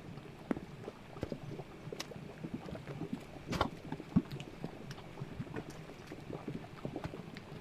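Bubbling mud pot: thick grey mud plopping and popping irregularly as gas bursts through it, with a couple of louder plops about halfway through.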